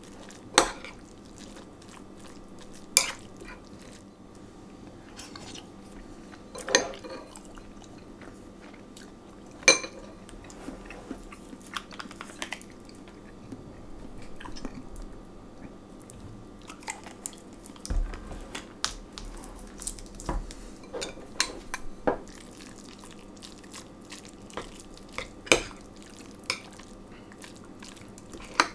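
Metal spoon stirring shredded pork and barbecue sauce in a glass bowl, with sharp clinks of the spoon against the glass every few seconds and softer scraping between them.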